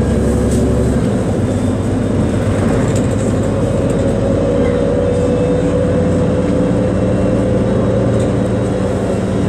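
City bus driving along, heard from inside the cabin: a steady engine hum and road noise. The lowest part of the engine note changes about a second in.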